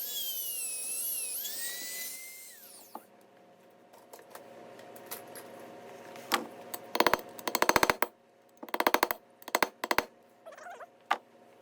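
High-speed rotary grinding tool with an aggressive bit grinding out a failed needle bearing. Its high whine wavers in pitch under load, then winds down about two and a half seconds in. From about halfway on come several short bursts of rapid, rattling chatter.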